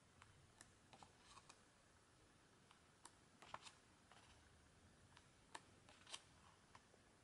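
Faint page turns of a photo book: short paper flicks and brief rustles, several of them at uneven intervals.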